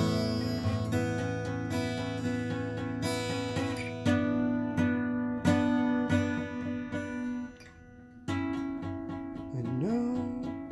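Acoustic guitar strumming chords, each stroke left ringing, with a brief break about three quarters of the way through before the strumming resumes.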